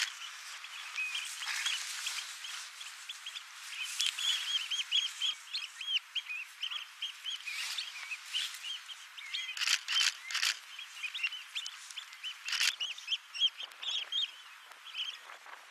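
A crowd of Eurasian oystercatchers giving shrill, overlapping piping calls in quick succession, with a few sharp knocks about ten seconds in.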